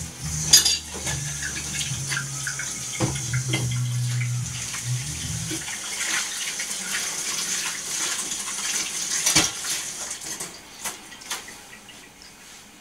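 Water running from a tap in a steady hiss, with a few sharp clinks, easing off near the end.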